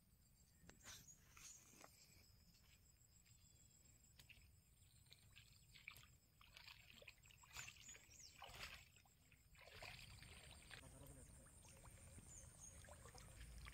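Near silence, with faint footsteps crunching and rustling over stony grass, then faint sloshing of water as someone wades in, from about ten seconds in.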